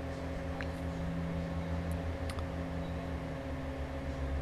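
Steady low hum with a faint hiss, with a faint click about two seconds in.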